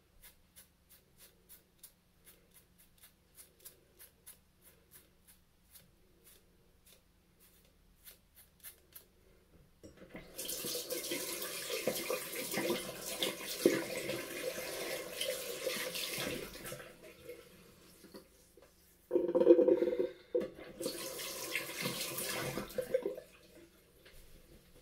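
A cartridge razor scraping over the scalp in short quick strokes, about three a second. It then gives way to a tap running into a sink for about seven seconds, a loud splash, and the water running again for a few seconds.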